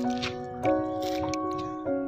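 Background music: sustained chords that change about every second, with a few faint clicks over them.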